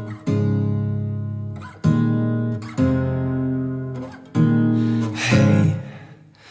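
Background music: an acoustic guitar strumming chords, each chord ringing out and fading before the next is struck, about five times.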